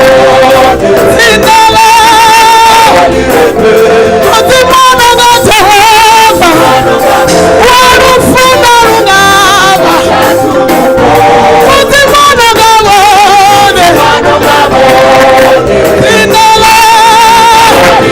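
Singing with musical accompaniment: voices holding long wavering notes over a steady backing.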